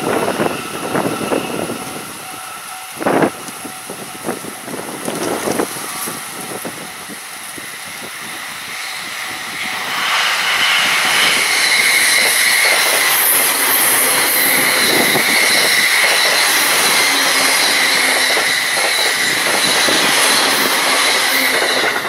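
Gusty wind buffets the microphone. About ten seconds in, a JR East electric train passes at speed, giving a steady loud rail-and-wheel roar with a high steady whine, which drops away near the end.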